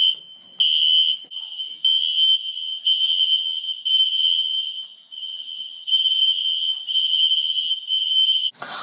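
Building fire alarm sounding: a loud, shrill high-pitched tone that swells and dips roughly once a second, cutting off suddenly near the end.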